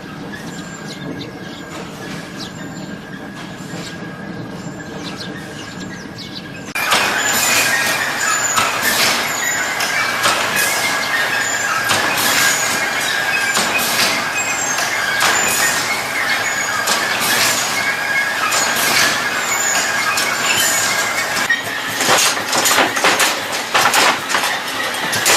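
Machinery running with a steady high-pitched whine and dense rattling clicks, getting clearly louder about seven seconds in.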